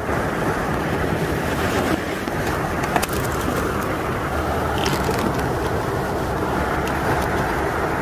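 Small creek flowing steadily, a continuous rush of water.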